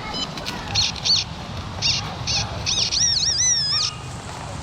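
XP Deus metal detector giving target tones over a deep coin: short high beeps that rise and fall in pitch, in pairs as the coil swings across, then a longer wavering tone about three seconds in.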